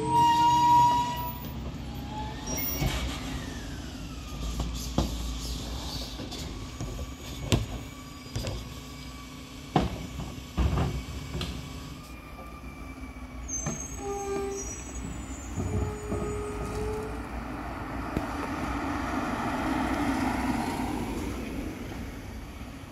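Rear-loading garbage truck at work with its diesel engine running, sharp bangs as wheeled carts are tipped against the rear hopper, and a few brief squeals. A broad rush of sound swells and fades near the end.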